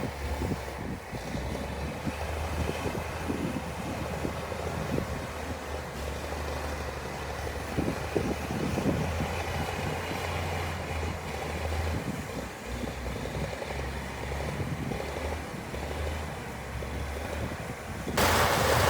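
Diesel engine of heavy earthmoving machinery running steadily, with irregular knocks and clatter. Near the end a much louder, noisier machine sound cuts in suddenly.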